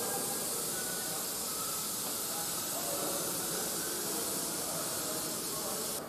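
A steady, even hiss with a faint whine in it, which starts and stops abruptly.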